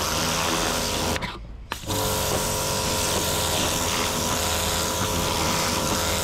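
Pressure washer running, its pump and motor humming under the hiss of the water jet hitting the boat's deck. It stops briefly about a second in, then starts up again.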